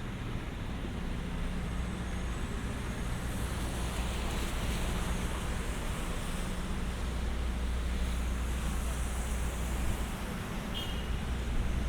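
City street traffic: cars passing on wet pavement, their tyres hissing in two swells, over a steady low engine hum. A brief high squeak near the end.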